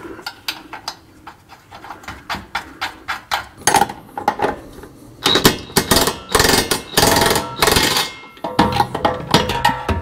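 A cordless impact wrench runs a nut onto a bolt through a steel bracket, hammering loudly for about three seconds from about five seconds in. Before that come quick light clicks of hand tools on the nut.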